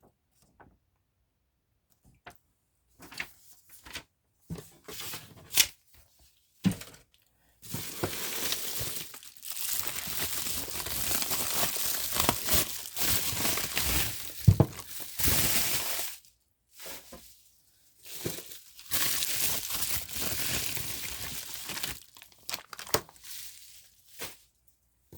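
Packing material being torn and crinkled by hand as parts are unwrapped. It starts with a few short rustles and knocks, then comes in two long spells of steady tearing and crinkling, the first around eight seconds in and the second a little later.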